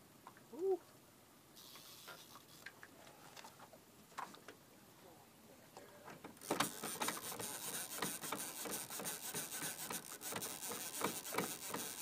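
Fishing reel ratcheting in a rapid, irregular run of clicks while a hooked musky is fought on a heavy trolling rod. The clicking starts about halfway through and is much louder than the faint scattered ticks before it.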